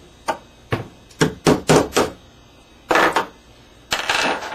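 Brass hammer tapping a punch to drive the mainspring housing pin out of a 1911 pistol frame: about six sharp taps in quick succession within the first two seconds. Two longer scraping clatters follow about three and four seconds in.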